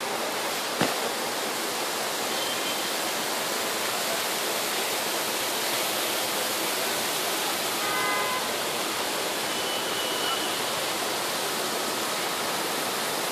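Heavy tropical rain pouring steadily over city rooftops and streets, a dense, even hiss of falling water. A single sharp knock about a second in.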